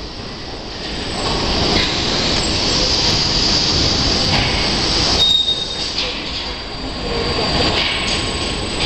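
Car assembly-line conveyor machinery running with a steady mechanical rush as the overhead carrier lowers a car body onto its axles, with a short high metallic squeal about five seconds in.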